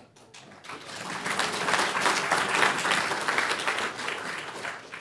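Audience applauding: the clapping builds up about half a second in and dies away near the end.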